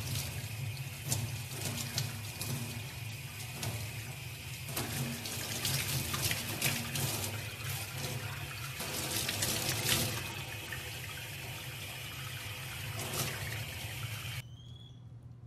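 Tap water running into a stainless steel sink and splashing over a wet young chimpanzee during its bath, a steady rushing that cuts off shortly before the end.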